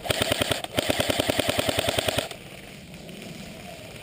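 Airsoft rifle firing on full auto: a rapid, even stream of shots that breaks for an instant under a second in, resumes, and stops a little after two seconds in.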